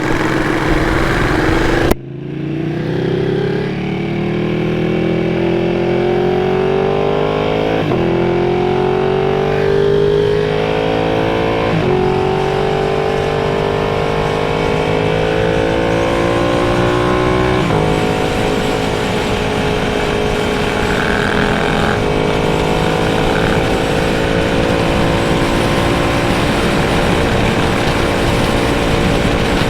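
Motorcycle engine accelerating up through the gears: its pitch climbs in each gear, with upshifts about 8, 12 and 18 seconds in, then it holds a steady pitch at cruising speed.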